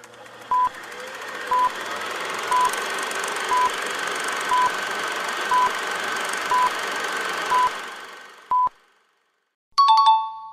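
Electronic quiz countdown timer beeping once a second, nine short identical beeps, over a background hiss that swells and then fades out. It is followed near the end by a two-tone electronic chime.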